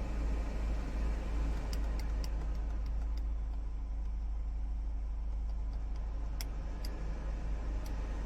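Suzuki Every Wagon's air-conditioning blower fan running, with a steady rush of air over a low hum and a few short, sharp chirps or ticks scattered through it. It is the abnormal noise that rises with fan speed and was traced to a faulty blower fan motor.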